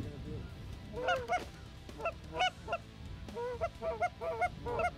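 Canada goose honking: clusters of short, clipped honks about a second in and again a second later, then a quicker run of honks and clucks toward the end.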